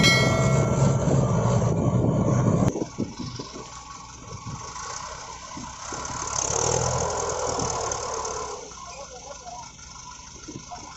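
Farm tractor diesel engines labouring as one tractor pulls another out of deep mud. The engines are loud and steady for the first few seconds, then drop suddenly to a quieter level, swell up again around the middle and fade back.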